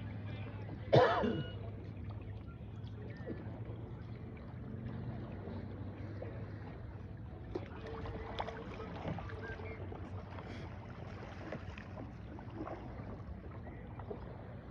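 Ambient sound on a boat on calm water: a steady low hum that fades after about five seconds, with faint water and small knocks. About a second in there is a single short, loud voice-like sound that falls in pitch.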